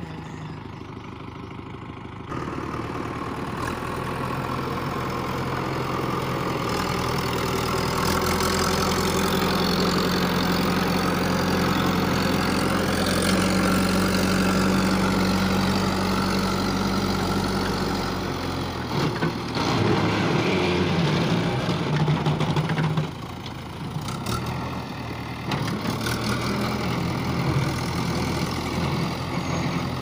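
JCB 3DX backhoe loader's diesel engine running, louder from about two seconds in and held at a raised, steady speed through the middle, then dropping back to a lower, rougher run about two-thirds of the way through.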